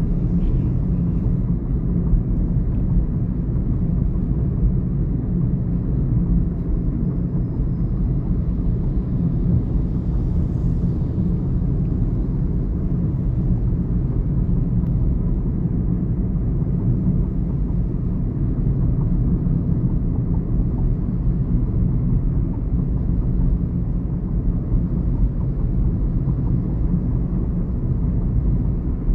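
Chevrolet Onix turbo driving along: a steady low rumble of engine and road noise.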